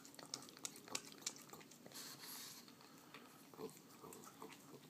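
Pug licking and mouthing peanut butter off a cracker: faint wet smacks and tongue clicks, several sharp ones in the first second and a half, with a short breathy hiss about two seconds in.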